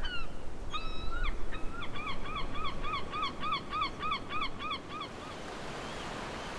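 A seabird calling: a single call, then a rapid series of short calls that rise and fall, about four a second, stopping about five seconds in. Surf washes underneath and becomes the main sound near the end.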